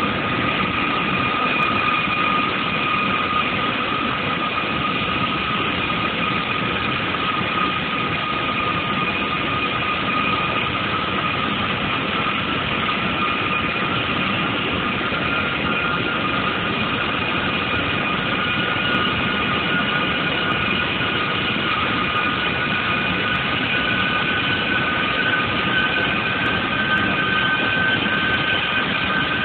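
Boeing 737 jet engines running close by on the ramp, a steady loud rush with a high whine; a second, slightly higher whine comes in about two-thirds of the way through.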